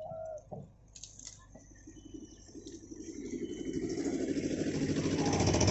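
Diesel engine of a JCB 3DX backhoe loader revving up, growing steadily louder over the last three seconds, after a few faint knocks and clinks.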